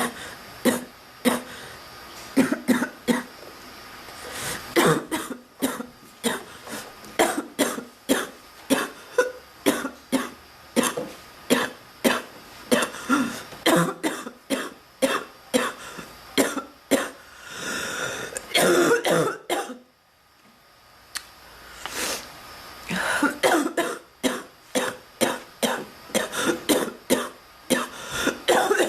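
A woman coughing in long fits of many short coughs in quick succession. The coughing breaks off briefly about two-thirds of the way through, then starts again. It is a persistent chest cough from an illness she is not getting over.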